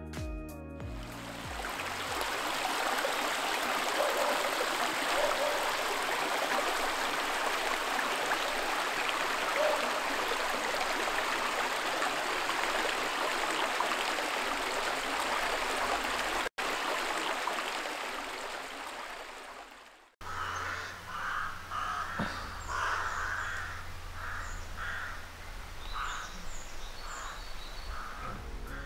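A small stony stream running, a steady rush of water. About twenty seconds in it cuts to birds giving short cawing calls again and again over a low steady rumble.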